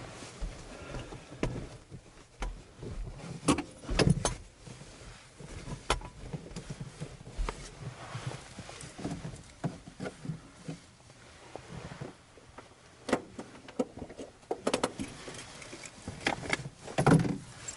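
Scattered clicks, knocks and rustling from someone handling things in a small aircraft's cockpit, with the engine not running.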